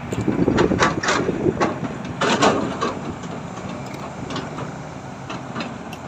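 An engine running steadily, with a run of loud knocks and clatters in the first three seconds.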